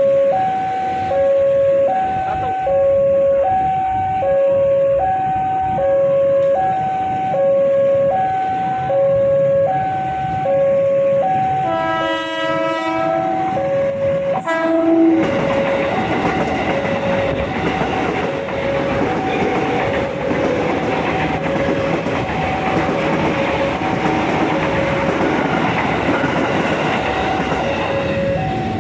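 A two-tone warning signal alternates steadily, high and low, about every three-quarters of a second. An electric commuter train sounds its horn, a blast about twelve seconds in and a short one near fifteen seconds, then runs past with rumbling wheel noise under the continuing signal.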